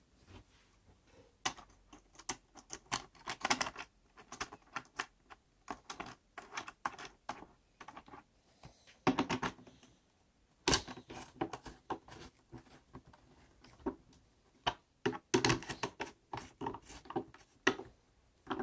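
Small irregular metal clicks and rattles as a 21700 series bus bar is fitted over the battery modules' terminal bolts and its nut is run down with a small hand nut driver, with several quick flurries of clicks.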